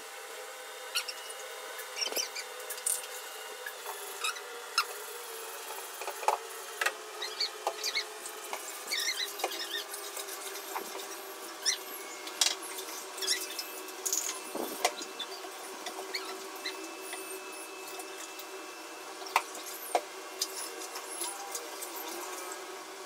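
A plastic mug scooping water out of a nearly empty glass aquarium: scattered clicks, knocks and short squeaks of plastic rubbing on wet glass, over a steady hum.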